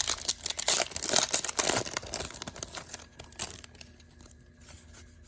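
A foil trading-card pack wrapper being torn open and crinkled for about three seconds, followed by quieter light handling of the cards.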